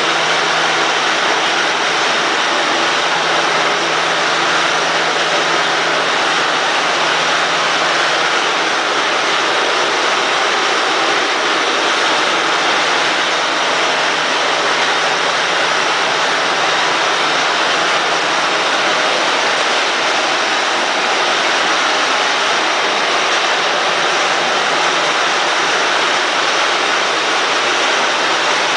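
Steady machine noise, an even hiss with a faint low hum, unchanging throughout.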